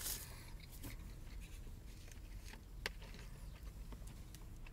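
Faint mouth and handling noises: quiet chewing and small clicks as food is set down and a plastic juice bottle is picked up, with one sharper click a little under three seconds in.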